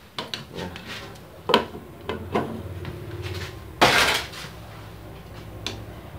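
Live click beetles jumping inside a covered frying pan, clicking irregularly against the glass lid and the metal pan, with a louder clattering burst about four seconds in.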